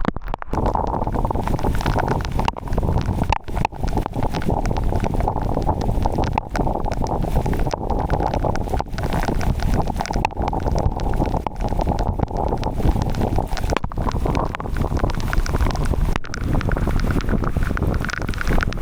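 Strong wind blowing across the microphone: a loud, steady rumbling noise that cuts out for an instant now and then.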